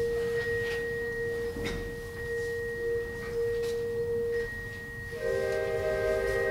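School concert band in a quiet passage: a single soft, pure note held steadily by one instrument, then several wind instruments come in together with a sustained chord about five seconds in.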